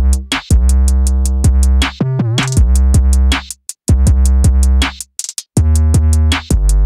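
Background electronic music: a drum-machine beat with deep bass notes and synthesizer chords, dropping out briefly twice.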